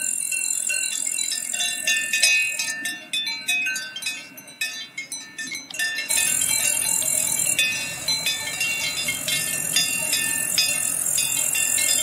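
Several cowbells on grazing cows clanking irregularly at different pitches. The strokes come quick and uneven a few seconds in, then settle into steadier ringing over a constant high hiss.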